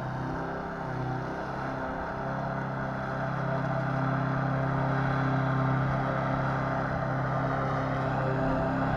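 A freshly repaired mower's small engine running steadily, its hum getting somewhat louder about three seconds in.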